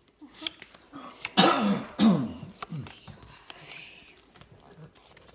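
A person's voice making short vocal sounds without clear words, two loud ones about a second and a half and two seconds in, with a few faint clicks around them.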